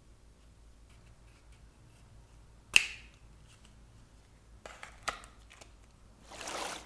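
Paper and card packaging handled by hand: faint ticks, one sharp click about three seconds in, a couple of lighter clicks near five seconds, and a brief swish near the end as the paper insert is pressed back into the cardboard box.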